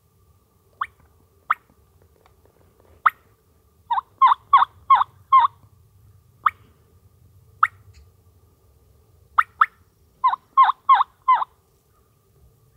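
Turkey clucks and yelps: scattered single sharp clucks, and two quick runs of yelps, five about four seconds in and four about ten seconds in.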